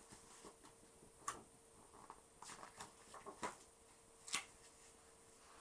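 A small child's hands turning and handling the pages of a picture book: faint, scattered paper rustles and taps, with sharper clicks about a second in and again after four seconds.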